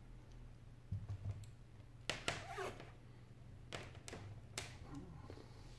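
Handling noise from an iPad 4 being laid on a wooden desk and pressed along its edges: a low thump about a second in, then a short run of light taps and clicks with a brief scrape.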